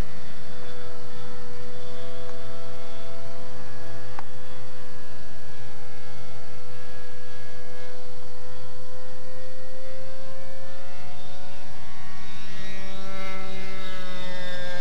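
Supertigre 90 two-stroke glow engine of a Revolver RC aerobatic model plane running at high revs in flight, a steady high-pitched buzz whose pitch drifts as the plane manoeuvres and rises and bends over the last few seconds.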